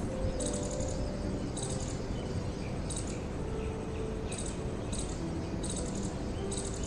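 Insect chirping: short, buzzy high chirps, each a quick string of pulses, repeating every second or so over a steady low background rumble.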